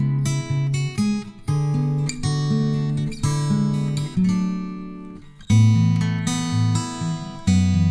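Background music: acoustic guitar playing plucked and strummed notes, the loudest chord about two thirds of the way in.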